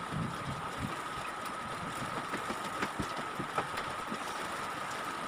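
A steady mechanical hum with a thin, high steady whine running through it, and a few faint light ticks.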